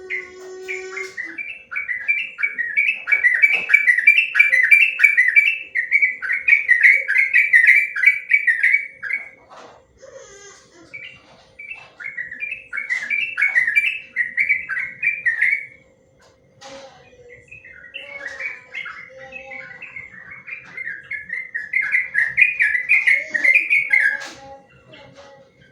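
Yellow-vented bulbul (trucukan) singing its long rapid chattering 'ropel' song: three long bouts of quick repeated notes with short pauses between.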